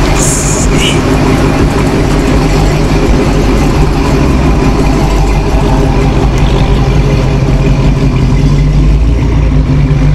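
Dodge Challenger SRT's V8 idling loudly at close range, a steady deep rumble.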